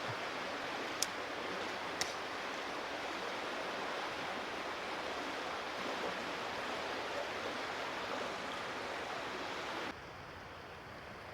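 Creek water running steadily over a shallow riffle, a continuous rushing hiss. Two sharp clicks come about one and two seconds in, and the water sound drops abruptly quieter near the end.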